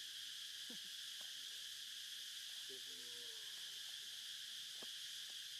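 Steady chorus of insects droning in a high register, with a faint short call about three seconds in.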